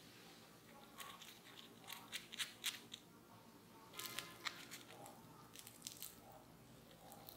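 Crisp, cornstarch-coated fried potato cube crackling and crunching as fingers break it open, in two main spells of sharp crackles, about a second in and again about four seconds in.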